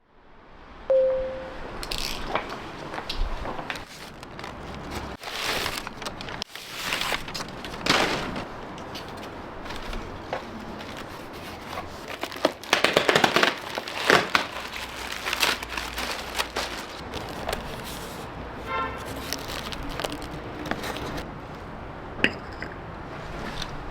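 Home-cooking sounds in a small kitchen: irregular clinks, knocks and crackling as food is handled and cooked, with a short beep about a second in.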